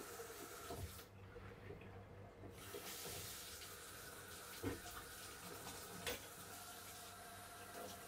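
Kitchen faucet running water over dishes being rinsed in the sink. The flow stops for about a second and a half about a second in, then runs again. Two sharp clinks of plates come later.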